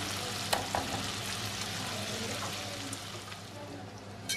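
Diced bacon sizzling as it fries in olive oil in a wok, with a couple of light knocks from the wooden stirring spoon about half a second in. The sizzle eases slightly near the end, where there is one sharp click.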